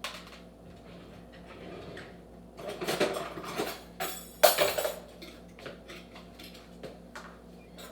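Kitchen utensils and dishes clinking and clattering in short bursts, with the loudest clatter about four and a half seconds in.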